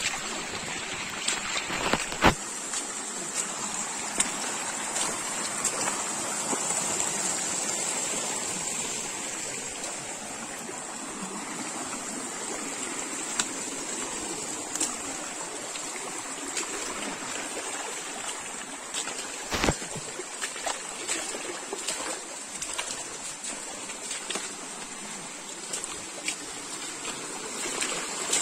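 Small rocky forest stream running and spilling over stones in a steady rush of water. Two sharp knocks stand out, about two seconds in and again about twenty seconds in.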